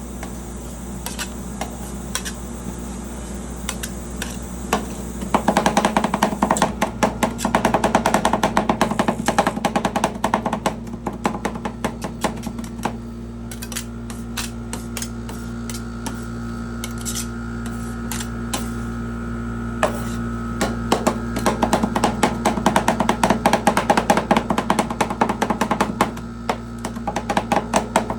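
Metal spatulas chopping rapidly against a rolled-ice-cream cold plate, in long runs of fast sharp clacks, over the steady hum of the plate's machine.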